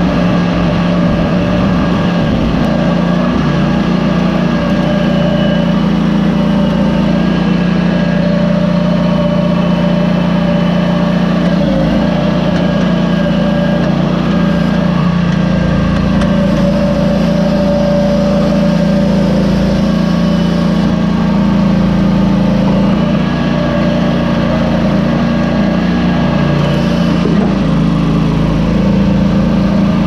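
Vanguard V-twin engine of a Bobcat 371 skid steer running at a steady speed as the machine drives, heard loud and close from the operator's seat.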